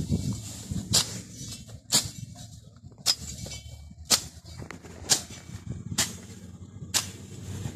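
Machete blade swinging low and slashing through dry grass, about once a second, seven quick swishing strokes in an even rhythm, as a plot is cleared by hand.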